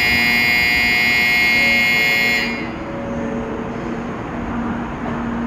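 Shinkansen platform departure bell ringing steadily as an electronic trill, cutting off suddenly about two and a half seconds in, the signal that the train is about to leave. A steady low hum from the waiting train carries on underneath and after.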